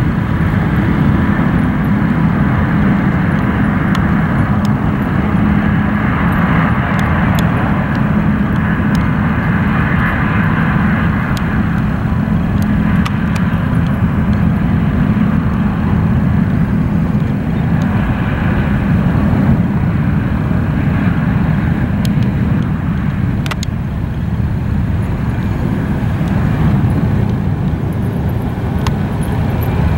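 Airliner jet engines, a steady loud rumble with a hiss above it.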